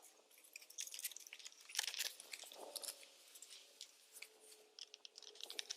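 Faint, irregular crinkling, crackling and clicking of hands working on the car door's wiring and trim, with the busiest stretch about two seconds in.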